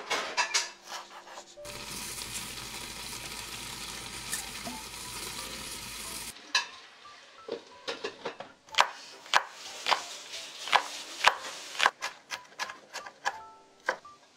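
A kitchen knife chopping wild chives on a wooden cutting board, then a steady cooking hiss that starts and stops abruptly and lasts about four and a half seconds. After that the knife strokes come again, sharp knocks about twice a second.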